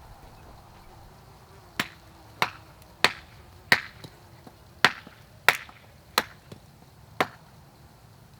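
Felling wedge being driven into the back cut with eight sharp striking blows, to tip a tree that is still standing on its hinge.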